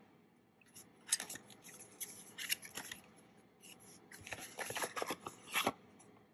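Cardboard coin presentation box handled and its inner box slid out of the outer sleeve: soft, papery rubbing and scraping in short, scattered spells.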